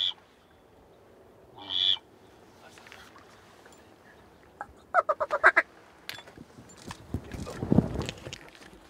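Quacking duck calls: one note about two seconds in, then a quick run of about seven short quacks around five seconds in, likely a hunter's call working incoming birds. A low rustling swells near the end.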